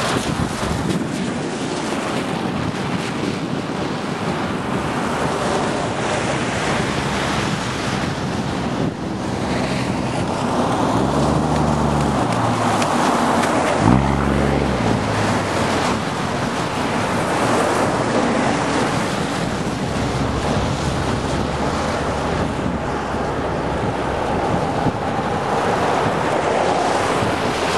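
Gusty storm wind buffeting the microphone, a steady rushing noise, with a low hum that drops in pitch around the middle.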